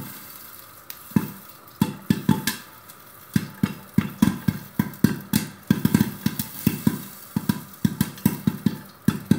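Popcorn kernels popping in hot oil inside a covered pan: sharp pops at irregular intervals, a few a second, with a short lull about three seconds in. The batch is still popping and not yet done.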